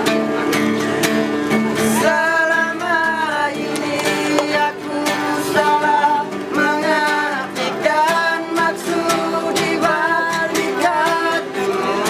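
Acoustic guitar strummed in a steady rhythm, joined about two seconds in by a quartet of male voices singing in harmony.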